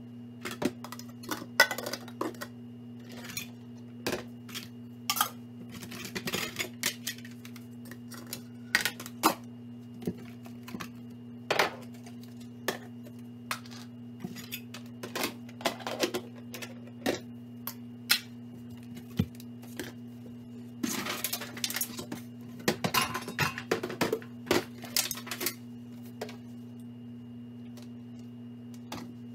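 Plastic food storage containers, lids and cookware clattering and knocking against each other and the cabinet shelf as they are pulled out of a kitchen cabinet and set on the floor. The knocks come in irregular clusters, busiest about three-quarters of the way through.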